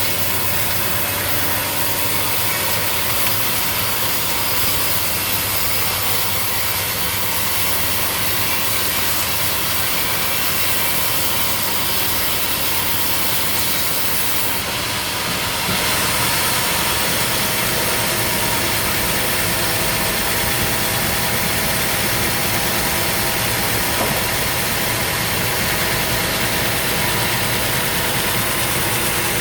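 Sawmill machinery running steadily, with a short hiss and a slight rise in level about halfway through.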